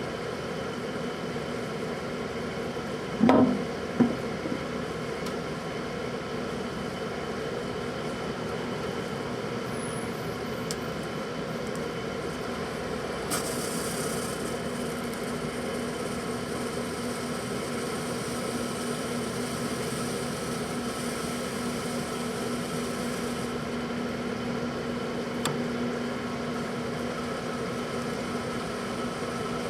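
Microwave oven running with a steady hum while heating a capped bottle of protein drink. Two sharp pops come about three and four seconds in, and a hiss starts about 13 seconds in and stops about ten seconds later.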